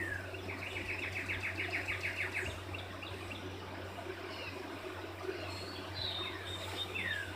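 A songbird singing: a single falling note followed by a fast, even trill, the song repeated near the end. A steady low hum runs underneath.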